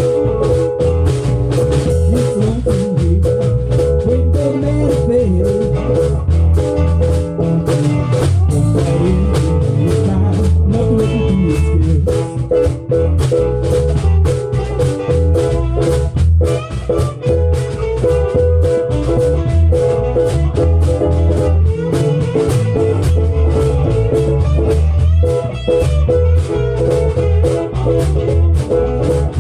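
Live band playing an instrumental passage of the song: guitar over a drum kit keeping a steady beat, with no singing.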